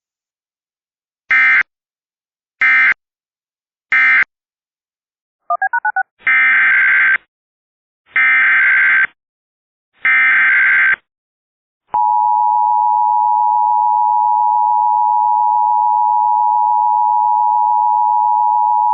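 Emergency Alert System SAME data tones: three short screeching digital bursts, which mark the end of the previous message, then three longer bursts, the header of the next alert. About two-thirds in, the steady two-tone EAS attention signal starts and holds.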